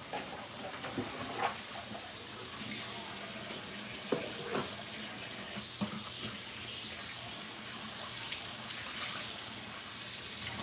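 Kitchen sink tap running steadily while dishes are washed, with a few light clinks and knocks scattered through.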